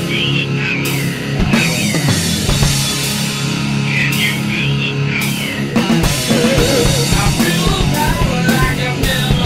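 Loud heavy rock band music with drums and sustained electric guitar. High wavering notes come in near the start and again about four seconds in.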